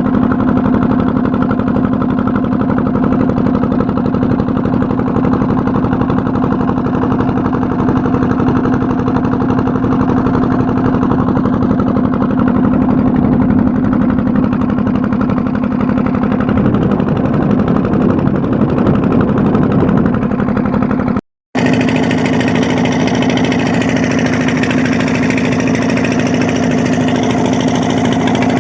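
A boat's engine running steadily at constant speed. It cuts out for a moment about 21 seconds in, then runs on as before.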